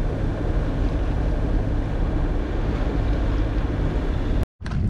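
A sailboat under power: a steady engine drone under water rushing past the hull and wind buffeting the microphone. It cuts off suddenly near the end.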